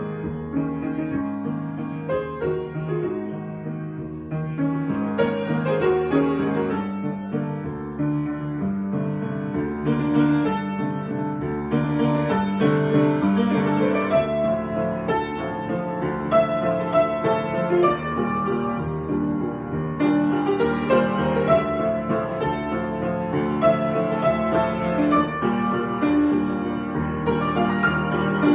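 Improvised piano music: chords and a melody played continuously, without a break.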